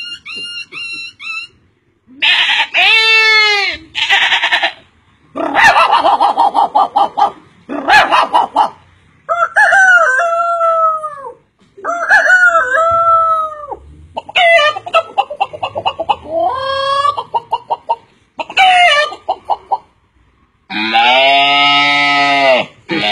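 A man imitating a rooster and hens with his voice: crowing calls and runs of rapid clucking, one after another with short pauses between them. Near the end comes a longer, louder held call.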